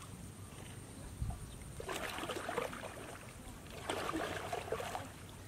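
Water splashing and sloshing as a long pole is driven into the shallows to push a narrow wooden boat along, in two spells about two and four seconds in, with a low thump a little over a second in.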